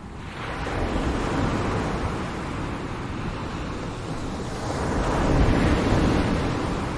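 Ocean waves breaking and washing on the shore, two swells of surf, the second one louder, about five seconds in.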